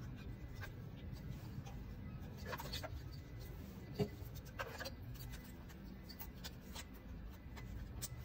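Scattered light clicks and taps of a socket and extension being handled while a spark plug is fitted, with one sharper knock about four seconds in.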